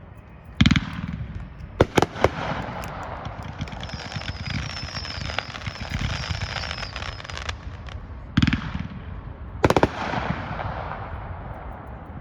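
Aerial firework cake (USA Conqueror) firing: a loud report about a second in, then three quick bangs. Dense crackling runs between the bangs, and two more loud reports come near the end before the crackle dies away.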